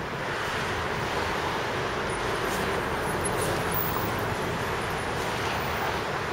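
Steady outdoor street noise: road traffic with wind on the microphone.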